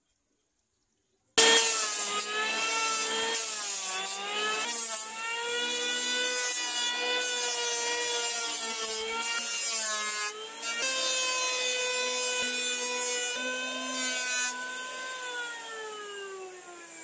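Electric hand planer running as it is pushed along a wooden beam, a high motor whine that starts abruptly about a second in and dips in pitch a couple of times under the load of the cut. Near the end the whine slides steadily down in pitch and fades as the planer spins down.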